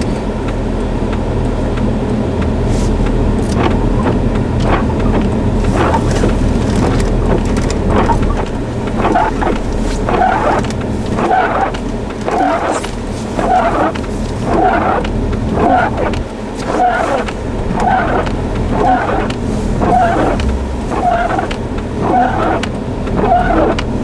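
Steady low hum of an idling car heard from inside its cabin, with scattered short clicks and knocks. From about nine seconds in, a short mid-pitched sound repeats about once a second.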